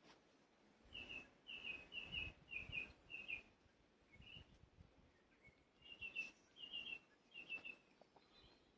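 A small bird singing: two phrases of quick, repeated high chirping notes, one starting about a second in and another around six seconds in, over faint outdoor background noise.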